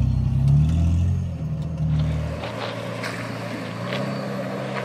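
Supercharged Jeep Wrangler's engine running under load as it crawls over a dirt rut, loud and low. About two and a half seconds in it cuts to a second 4x4's engine, quieter and steady, with scattered clicks and knocks as it creeps into a sandy trench.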